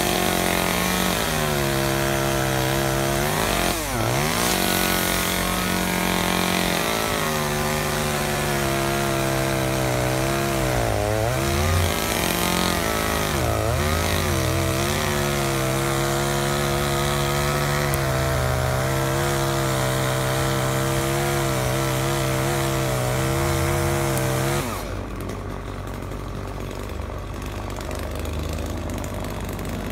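Chainsaw running at high revs cutting oak branches, its pitch dipping sharply and recovering three times; about 25 seconds in it falls to a quieter, lower note.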